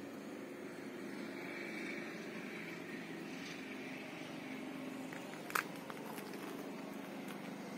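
Steady outdoor background with the low hum of vehicle engines, and one sharp click about five and a half seconds in.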